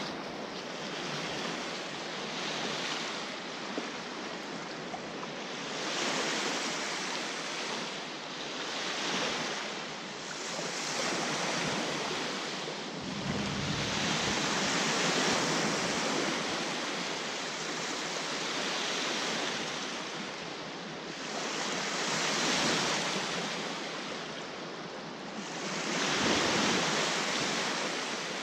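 Small waves breaking and washing up a sandy beach, the surf swelling and fading every few seconds, with a couple of brief gusts of wind on the microphone.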